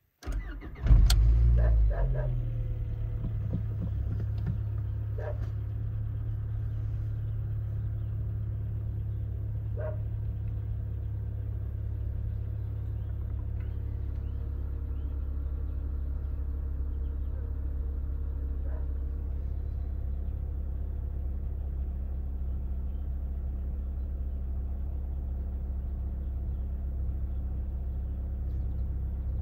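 Cold start of a high-mileage (370,000 km) Skoda Fabia 1.4 16V MPI four-cylinder petrol engine: the starter cranks briefly, the engine catches about a second in with a short flare in revs, then settles into a steady idle.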